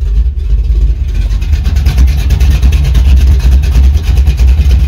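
A ZZ4 350 small-block V8 idling steadily through long-tube headers and Spintech Pro Street mufflers, a low pulsing rumble, just after being restarted.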